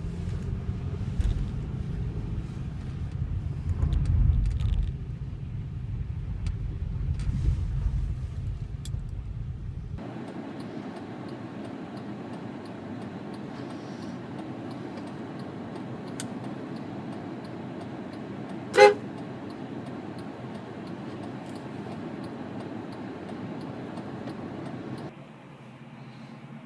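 Low rumble of engine and road noise heard inside a moving car, then, after an abrupt change, steady lighter road noise with one short car-horn toot about two-thirds of the way through.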